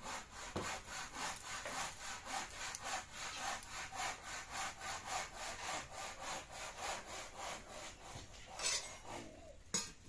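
A hand saw cutting a wooden plank, with quick even back-and-forth strokes, about four a second. The strokes stop near the end, followed by a couple of separate scrapes of wood.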